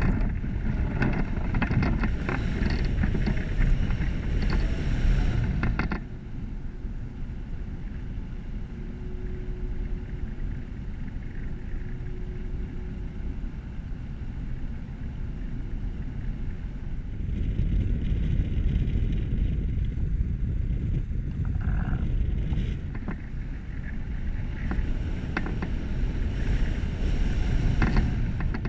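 Airflow rushing over the microphone of a camera mounted on a flying hang glider: a heavy low rumble that eases about six seconds in and builds again from about seventeen seconds, with scattered light ticks.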